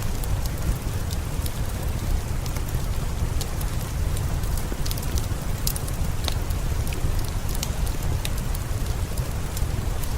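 Steady rain falling, with a low rumble beneath it and scattered sharp crackles from a wood fire.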